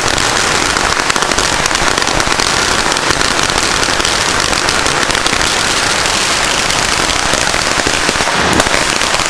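A long string of firecrackers going off in a rapid, continuous run of cracks, with one slightly louder bang near the end.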